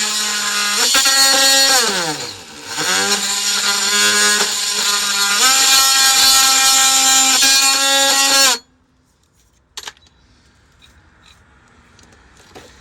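A power tool's motor running with a steady whine, its pitch sagging and recovering about two seconds in, then cutting off suddenly about two thirds of the way through; a single sharp click follows in the quiet.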